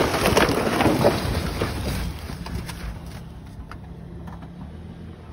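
A Toyota Corolla towing a small caravan passing fast through deep mud: a loud rush of tyres splashing and spattering mud with crackles, then a steady low engine hum that fades as the car pulls away.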